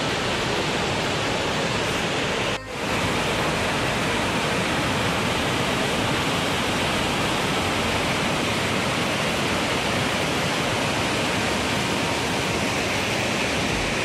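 Steady rush of Dassam Falls, a large waterfall dropping about 144 feet over rock ledges into a pool, heard from close by. The sound dips briefly about two and a half seconds in.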